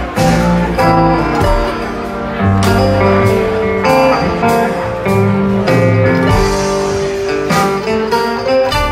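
Live band playing an instrumental passage: plucked string instruments over bass, with regular drum hits.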